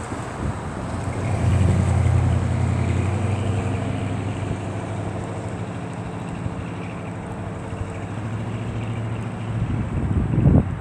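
Outdoor electronic tornado warning siren sounding its air-horn signal: a low, steady blaring horn tone that swells in about a second and a half in and holds, with a brief louder surge near the end.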